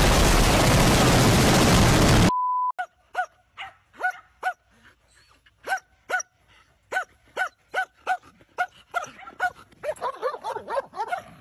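A loud burst of noise from a wall being blown open in a first-person shooter game, cutting off sharply about two seconds in, followed by a brief steady beep. Then a dog yipping over and over in short yips, one or two a second, coming faster and overlapping near the end.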